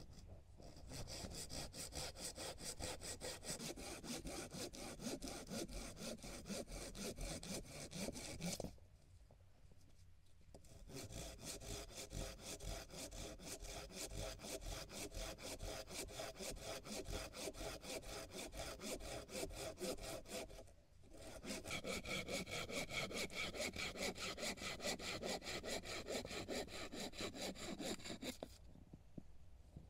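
Hand saw cutting through wood in fast, even back-and-forth strokes, in three long runs with short pauses between them.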